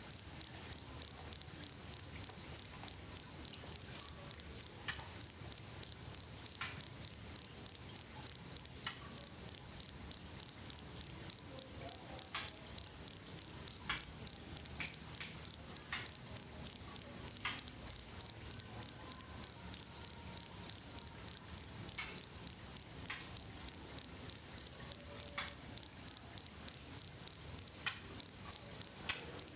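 Cricket chirping: a loud, high-pitched chirp repeated steadily about three times a second.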